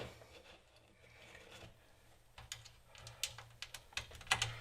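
Near quiet at first, then from about halfway a scatter of light clicks and taps from small hard tools or parts being handled.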